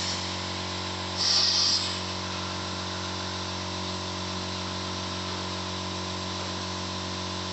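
Steady multi-tone hum of a running fiber laser welding/cleaning machine's cabinet, with a short, louder hiss about a second in.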